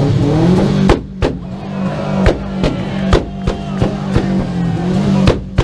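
Car engine held at steady revs through a loud aftermarket exhaust, with a string of sharp exhaust bangs about three a second.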